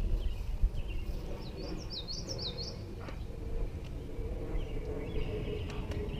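A songbird calling a quick run of high, rising-and-falling chirps in the middle, over a steady low rumble. A faint steady hum comes in about halfway through.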